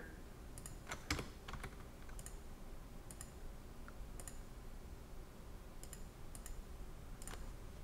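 Faint, scattered clicks of computer keyboard keys and a mouse, one or two every second or so, while a CAD sketch is drawn.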